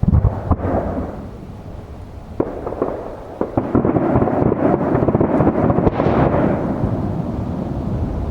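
Aerial fireworks bursting. A loud bang opens it and another comes about two and a half seconds in, then a dense run of bursts and crackle follows from about three and a half seconds, stopping suddenly.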